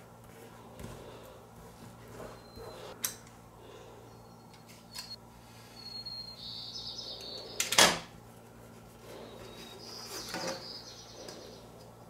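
Small handling sounds of a utility knife and steel ruler on a wooden tabletop as thin metal foil is cut, with one sharp knock about eight seconds in as the loudest sound. Faint bird chirps in the background.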